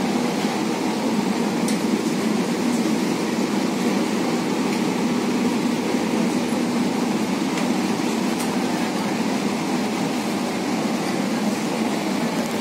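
Steady running noise inside a moving Kochi Metro electric train car, low and even, with a couple of faint ticks.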